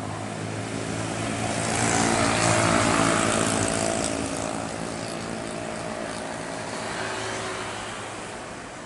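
Jet airliner passing close by, its engines' hiss and hum swelling to a peak about three seconds in, then slowly fading as it moves away.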